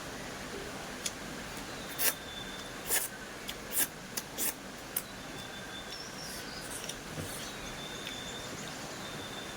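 Close-miked eating: chewing with a run of short, sharp smacks and crunches in the first half, over a steady background hiss.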